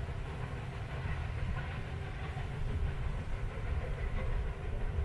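Steam train of locomotive 434.2338 and vintage carriages running away along the track, a steady low rumble of the train on the rails.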